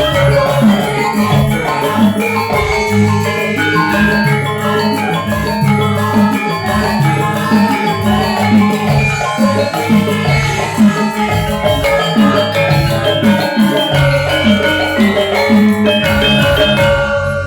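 Javanese gamelan ensemble playing: bronze metallophones and gongs ringing over repeated low drum strokes, breaking off right at the end.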